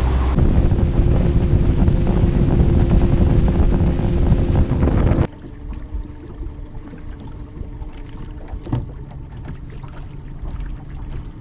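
A bass boat running under power, loud, with a steady engine hum and rushing wind and water. It cuts off suddenly about five seconds in, and a much quieter stretch of water and hull noise with light wind follows.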